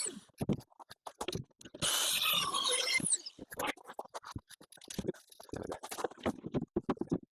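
Irregular knocks, clicks and scrapes of hands working with wood and tools, with a denser scraping burst lasting about a second, about two seconds in.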